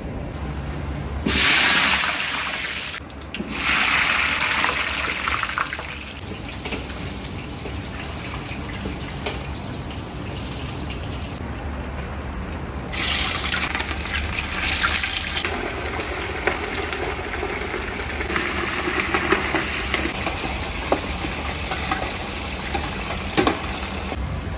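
Bone-in meat chunks going into hot oil in a large stainless steel stockpot: a sudden loud sizzle, then steady sizzling with sharp spits and pops as the meat sears, over a low steady rumble. Two loud bursts of hissing come a second or so in, before the meat goes in.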